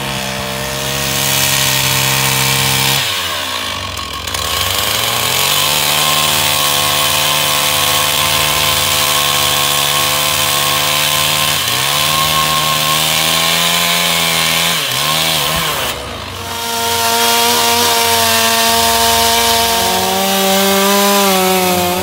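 Petrol chainsaw running at high revs, cutting through the trunk of a fallen tree; its engine note dips and climbs back several times.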